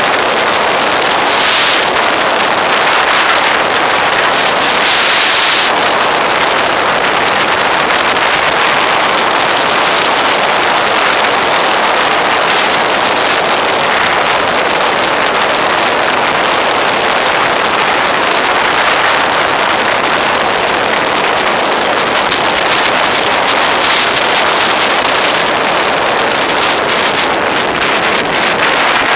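Wind rushing over the camera microphone of a moving motorcycle: a loud, steady hiss that drowns out the engine and road. A few louder gusts come about two and five seconds in and again near the end.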